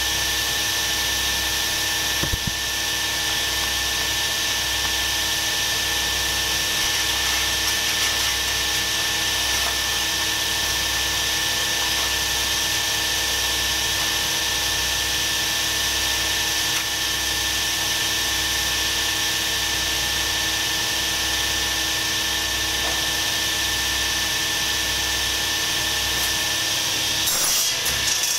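A machine's electric motor running steadily, with a constant whine of several fixed tones over a hiss. Brief handling noise comes near the end.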